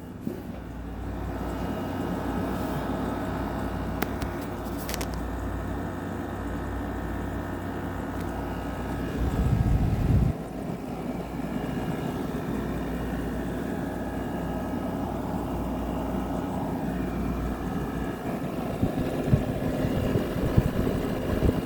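GE 6,000 BTU wall air conditioner running: a steady hum from its rotary compressor under the rushing air of its fan. The compressor is freezing up, which the owner thinks is from an overcharge. A brief low rumble comes near the middle.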